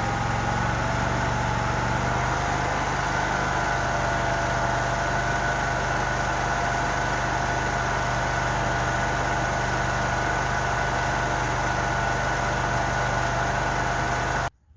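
Compact construction machine's engine running steadily under throttle, with a steady high whine over a low engine hum. It cuts off abruptly near the end.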